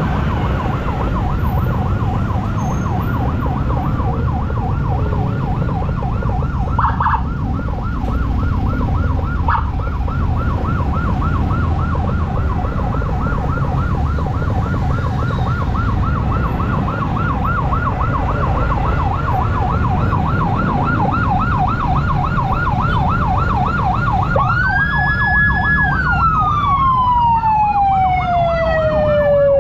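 Emergency siren on a rapid yelp, warbling quickly between two pitches. Near the end it switches to a long wail that holds high, then slides steadily down and sweeps back up. Engine and traffic rumble run underneath.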